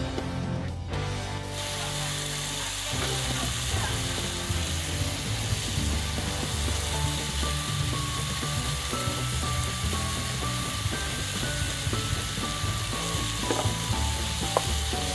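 Diced corn, carrots and peppers sizzling as they fry in a skillet, with a dense hiss that starts about a second and a half in. A wooden spoon stirs the mix now and then. Background music plays throughout.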